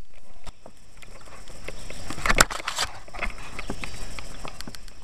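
Scattered light knocks and clicks, with a louder cluster of rattling knocks about two and a half seconds in.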